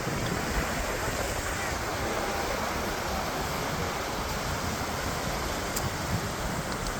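Steady rushing outdoor noise without a break, heaviest in the low end, like surf or wind.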